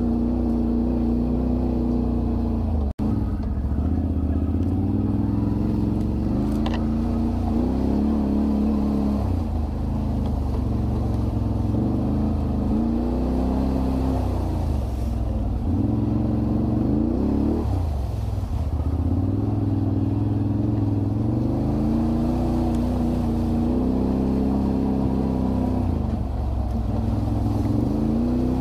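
ATV engine running and revving up and down again and again as the quad crawls over rough ground, with a momentary dropout about three seconds in.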